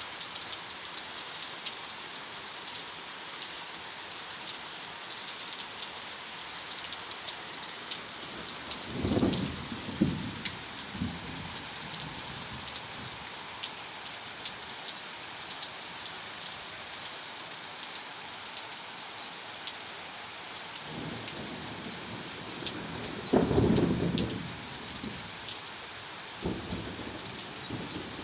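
Heavy rain falling steadily, with low rumbles of thunder about nine seconds in and again from about twenty-one seconds, the second the loudest.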